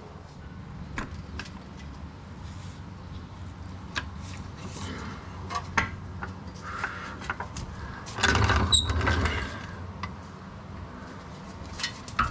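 Hand tools and metal parts clinking and knocking during work on a car's rear suspension as the lower-arm bolt is undone to free the coil spring, with a louder scraping clatter about eight seconds in.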